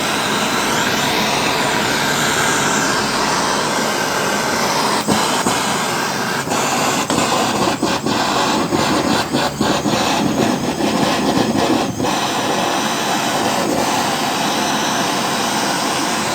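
Hand-held gas torch flame burning with a steady hiss while brazing the ends of coil leads. From about five seconds in until about twelve, the noise flutters with many brief drop-outs.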